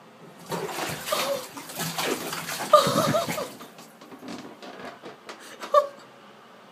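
Water splashing in a filled bathtub as a cat paws at it, for about three seconds. A short wavering vocal sound comes around three seconds in, and a brief one near the end.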